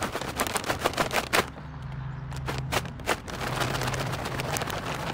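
A bag of dried mealworm treats being shaken: a rapid rattling crackle for about a second and a half, then another short spell near the middle. After that a steady low rumble carries on.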